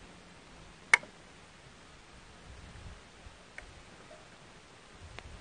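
Small handling noises: one sharp click about a second in, then a couple of faint ticks, as cooking things are moved around a portable gas stove and a food can.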